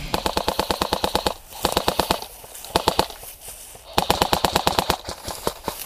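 Airsoft rifles firing on full auto in several quick bursts of rapid clicking shots, the longest in the first second and a half.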